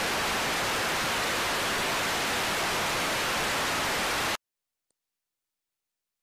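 TV static from a television set: a steady, even hiss that cuts off suddenly about four seconds in, leaving silence.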